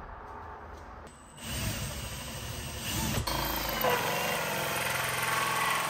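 Cordless drill with a hole saw cutting through a wooden stud, running steadily; quieter at first and much louder from about a second and a half in.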